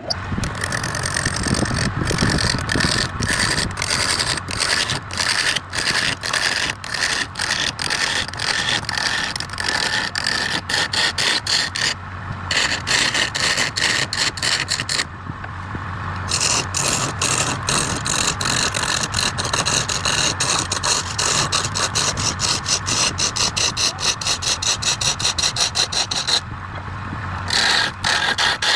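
Wood lathe running with a turning tool scraping against the spinning wood in a rapid, even run of strokes. The strokes break off briefly three times while the lathe's low hum carries on.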